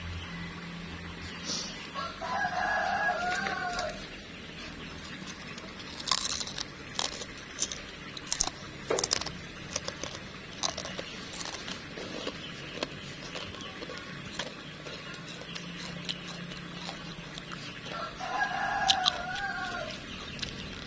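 A rooster crowing twice, each crow about two seconds long, once near the start and again near the end. Between the crows come scattered sharp clicks and knocks.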